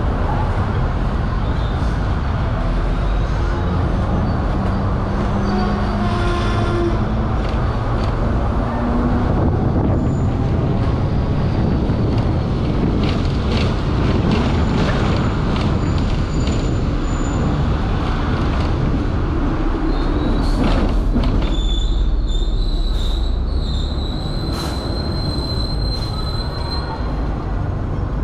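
Hong Kong electric tram running along its street rails with a steady low rumble. A low whine rises slightly in pitch a few seconds in, and scattered clicks follow. From about twenty seconds in, a high, thin wheel squeal comes from the rails.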